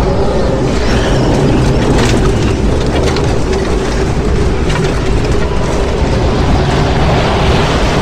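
A loud, steady roar with a heavy deep rumble and a faint steady hum beneath, which cuts off suddenly at the very end.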